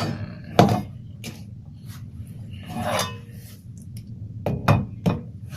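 Metal motorcycle centre stand and its small parts being handled: a few sharp knocks and clinks, the loudest about half a second in and a couple more near the end, with a scraping rub about three seconds in.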